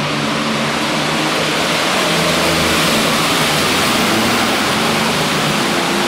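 Super Farm class pulling tractor, a John Deere 4455 with a turbocharged diesel engine, running at full power under load as it drags the sled. Loud and steady, with a dense rushing noise over the engine note.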